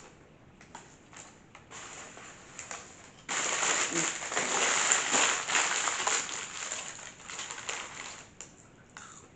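Paper fast-food wrappers rustling and crinkling as they are handled and unwrapped. Light scattered rustles at first, then loud continuous crinkling from about three seconds in, easing off shortly before the end.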